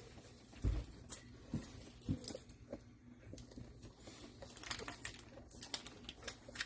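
Scattered light knocks, taps and clicks of kitchen utensils and containers being handled while making macaroni and cheese, with a few duller thumps in the first two seconds and sharper clicks later.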